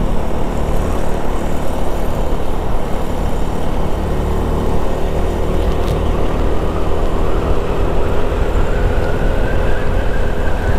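Wind rushing over a helmet microphone with the visor open, over the steady running of a Honda Vario 160 scooter's single-cylinder engine while riding. A steady engine tone comes up about four seconds in and holds.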